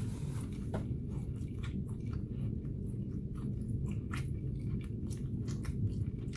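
A person chewing a bite of a grilled chicken sandwich with the mouth closed: irregular soft clicks and smacks of the mouth, over a steady low hum.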